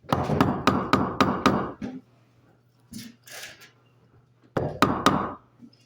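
Mallet striking a wood chisel: a quick run of sharp blows for about two seconds, a pause, then a few more blows near the end.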